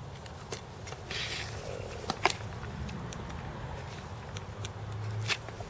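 Quiet bench handling sounds from soldering a small surface-mount part onto a circuit board: a few faint clicks and light scrapes, with a brief soft hiss about a second in.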